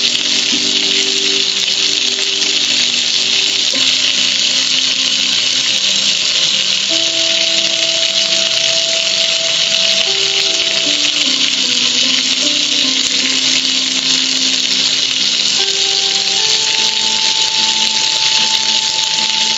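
Steady rush and hiss of water spraying and streaming down over a metal gas grill, with music of slow held notes underneath.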